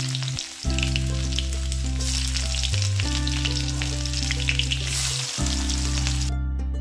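Chopped garlic and cumin seeds sizzling and crackling in hot oil in a steel kadhai, over background music; the sizzle cuts off near the end.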